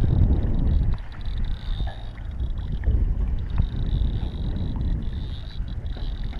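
Wind buffeting a GoPro microphone in gusts over small waves lapping against the boat's hull, with a few faint clicks.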